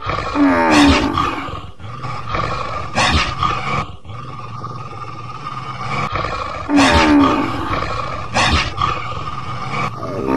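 Dubbed animal-attack sound effects: about five loud cries, each falling in pitch, a few seconds apart, over a continuous rough animal growling noise.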